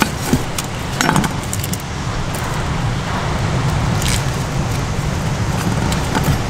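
Onion being cut and peeled on a wooden cutting board: a few sharp knife clicks and crinkles of dry onion skin, about a second in and again around four seconds, over a steady rushing background.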